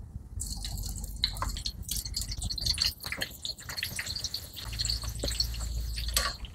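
Battered tempe slices frying in hot oil in a wok: a dense sizzle full of small crackles and pops that starts about half a second in as the first slice goes into the oil. A steady low hum runs underneath and grows louder for a while near the end.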